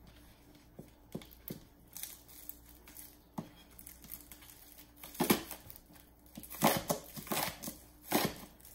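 Chef's knife slicing green onions on a plastic cutting board: crisp cuts and taps of the blade on the board, a few scattered at first, then quicker runs of cuts in the second half.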